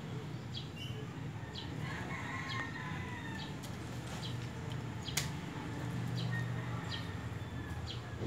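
Leaves rustling and stems ticking as leafy cuttings are handled and pushed into an arrangement around a palm frond, with a sharper click about five seconds in, over a steady low hum.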